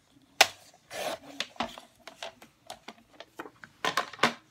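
Cardstock being cut on a Fiskars sliding paper trimmer: a sharp click, then a short rasp as the blade carriage slides along the rail through the card, followed by light taps and rustles of card being handled and two louder clicks near the end.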